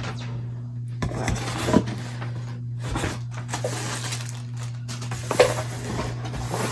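Packaging being handled and opened, rustling and crinkling with scattered clicks, over a steady low hum.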